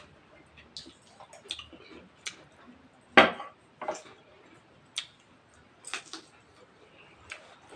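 Close-miked eating sounds: scattered short wet clicks and smacks of chewing, with light knocks of food and utensils on a plate, the loudest about three seconds in.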